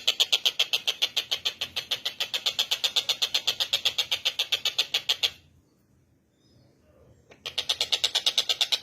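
Tengkek buto kingfisher calling: a fast, even, high-pitched chatter of about ten sharp notes a second. It breaks off for about two seconds in the middle, then starts again.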